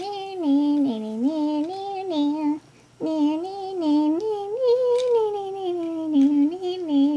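A woman singing a wordless sing-song tune, in two long phrases with a short break about two and a half seconds in.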